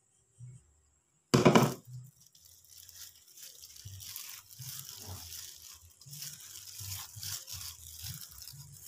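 Hand rubbing and squeezing glutinous rice flour into grated coconut in an enamel bowl: a soft, steady rustling and scraping. A short loud knock about a second and a half in.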